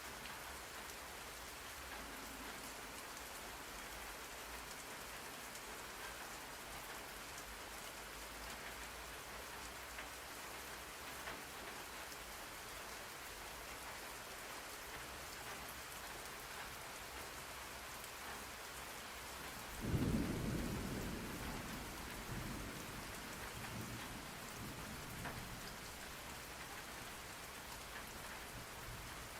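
Steady rain falling. About two-thirds of the way through, a clap of thunder breaks in and rumbles away over several seconds.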